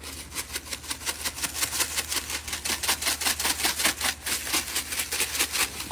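Handheld pepper grinder twisted over a bowl of pasta salad: a steady run of rapid, even grinding clicks, about five or six a second.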